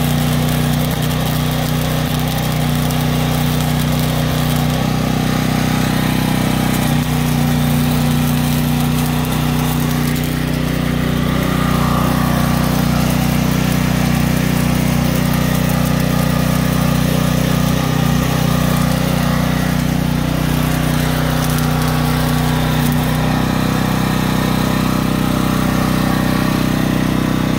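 An engine running steadily, with the crackling arc of a wire-feed welder as it welds a caster swivel to a steel cart frame.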